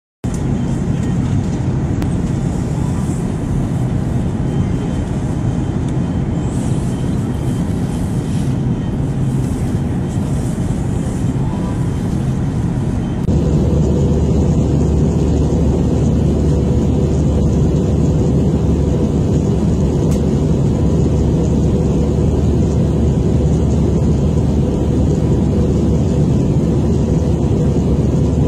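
Airliner cabin noise in cruise, heard from a window seat: the steady rushing drone of the jet engines and airflow. About halfway through it cuts to a slightly louder, deeper drone from a second recording.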